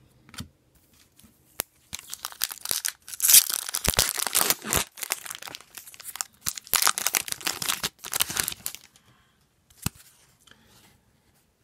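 Foil wrapper of an Upper Deck hockey card pack being torn open and crinkled: a run of crackling from about two seconds in to about nine seconds in, loudest early in the run, followed by a few faint rustles of the cards.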